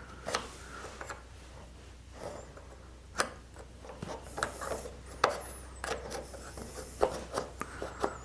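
Wooden puzzle box being handled: loose wooden parts rubbing and knocking against each other in scattered light clicks, with a sharper knock about three seconds in and quicker clicking in the second half. The parts are loose enough to rattle, which the owner takes for a possibly cracked box.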